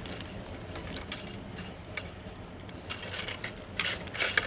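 Hand-worked plastic clips and fittings on a car's fuel filter assembly being pried and fiddled with: scattered clicks and light scraping, with a quick run of clicks near the end.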